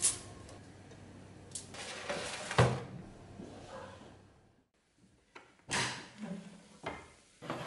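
Kitchen handling noises: aluminium foil crinkling as meat is laid on a baking tray, a sharp knock about two and a half seconds in, then a few clunks near the end as the small electric oven's glass door is handled.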